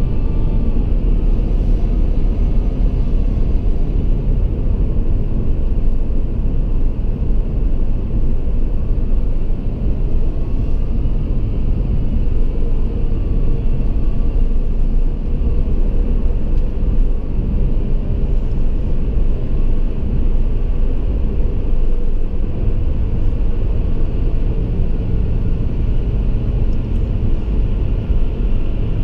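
Steady low rumble of a car driving through a road tunnel: tyre and engine noise, with the din of surrounding traffic in the enclosed tube.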